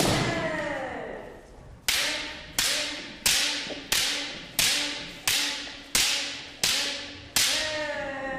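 Bamboo shinai strikes: one hit with a shouted kiai at the start, then a run of nine sharp, evenly spaced clacks about 0.7 s apart, each echoing in the hall. Another kiai shout comes near the end.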